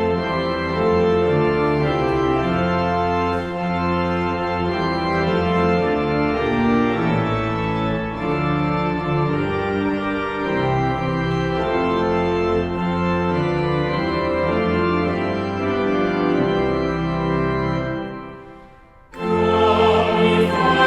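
Organ playing sustained hymn chords that break off briefly near the end, then the hymn starts with voices singing over the organ.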